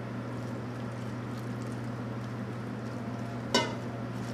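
Dressing poured from a stainless steel bowl onto shredded cabbage, over a steady low hum. About three and a half seconds in comes one sharp, ringing clink of metal on metal, the loudest sound here.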